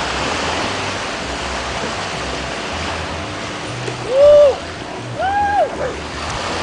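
Small surf washing on the beach gives a steady rush of noise. About four seconds in a person lets out a loud, drawn-out shout, and a second, higher shout follows about a second later, as spectators call out to an arriving kayak.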